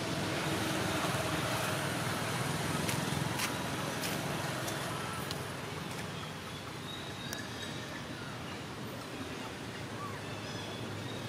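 Steady hum of distant road traffic, with a few faint sharp clicks partway through.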